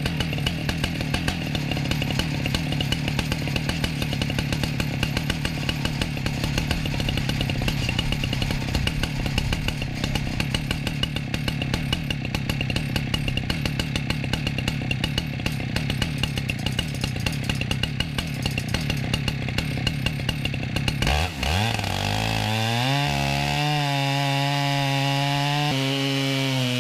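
Chainsaw mill ripping lengthwise through a log, the saw engine running hard under load. About 21 seconds in the note dips and glides, then settles into a cleaner, steadier engine tone as the load on the saw changes.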